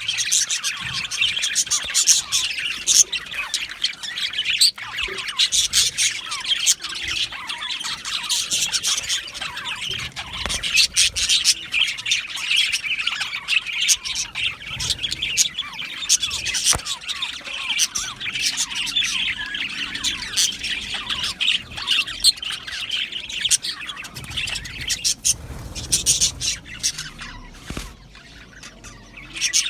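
A flock of budgerigars chirping and chattering together, with sharp squawks mixed in.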